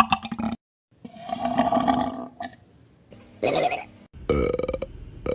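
Several human burps, one after another: a long one about a second in, a short loud one midway, and a long rattly one starting near the end.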